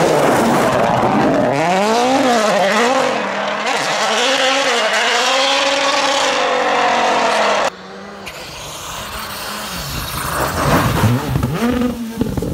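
Rally car engines revving hard, the pitch sweeping up and down through throttle lifts and gear changes. About eight seconds in, the sound cuts off abruptly to a quieter engine, which builds up again with an uneven, stuttering note near the end.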